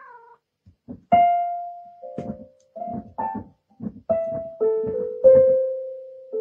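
A cat pawing the keys of an electronic keyboard, sounding about eight single notes at an uneven pace. Each note starts with a soft thud of the paw on the key and then rings and fades. The note near the end is the loudest and rings the longest.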